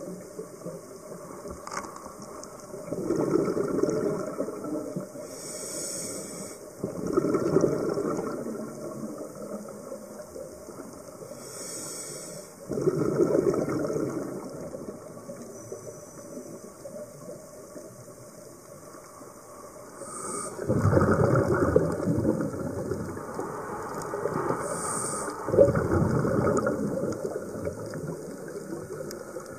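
Scuba diver breathing through a regulator underwater: short hissing inhalations alternate with longer rushes of exhaled bubbles every few seconds.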